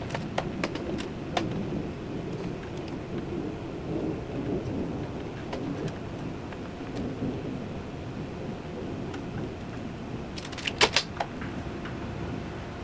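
Low, uneven rumble of distant thunder, swelling and fading. Scattered light clicks sound over it, and a quick run of sharp clicks about ten seconds in is the loudest moment.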